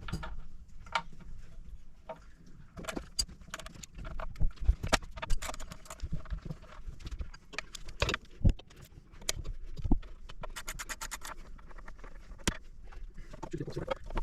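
Hand tools clinking and knocking on metal as a cover plate is unbolted from a marine inboard engine, with a quick run of even clicks a little past the middle.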